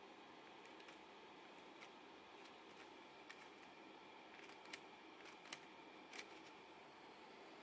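Near silence with a faint steady hiss and several small, sharp clicks as fingers press and release a Mini 4WD car's front AT pivot bumper, its plates and parts knocking lightly as it swings back.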